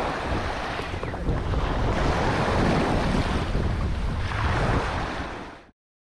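Wind blowing hard across the microphone over lake water washing and splashing around a sail-powered kayak, rising and falling in gusts. It cuts off abruptly near the end.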